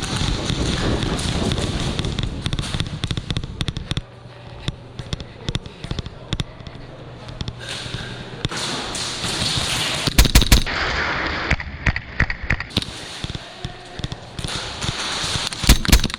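Airsoft guns firing in a game: scattered sharp cracks, with a quick cluster of shots about ten seconds in and another just before the end. Rustling movement noise from the player is loudest in the first few seconds.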